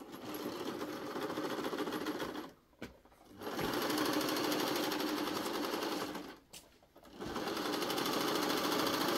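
Sewing machine stitching in three runs of a few seconds each, stopping briefly between them.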